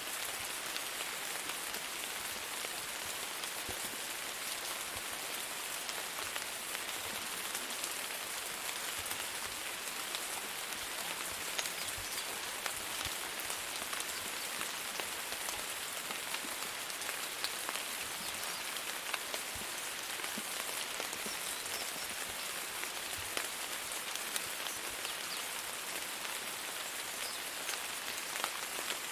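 Steady rain falling on a hard surface: a dense, even hiss with scattered ticks of individual drops.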